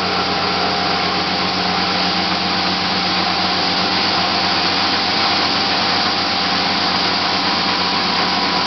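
Small 400-watt spin dryer running at high speed with a load of wet washing in its drum: a steady, loud machine noise with a few constant hum tones in it, building slightly in the first second as it comes up to speed.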